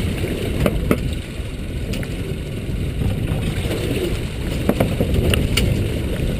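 Wind rumbling on the microphone aboard a small boat at sea, with a few short sharp knocks and clicks of gear being handled, twice near the start and a few more past the middle.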